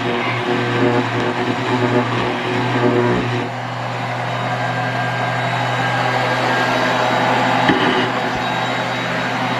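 Electric power tool running steadily, a constant motor hum under a rough scraping noise, easing slightly about three and a half seconds in.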